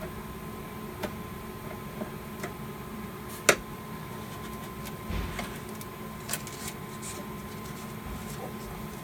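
Scattered light clicks and knocks of metal and plastic panel parts being handled during work on a fire alarm control panel, with one sharp click about three and a half seconds in and a dull thump a little later. A steady faint hum with a high tone runs underneath.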